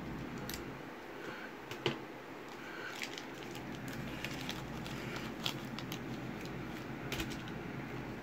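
Trading cards and foil packs being handled on a table: about half a dozen light clicks and rustles, the sharpest just before two seconds in, over a steady low hum.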